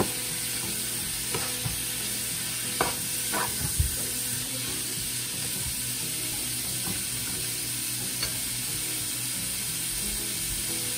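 Sliced ribeye steak and onions sizzling steadily in a frying pan, with a spatula scraping and stirring through them; a few sharp knocks of the spatula against the pan come in the first four seconds.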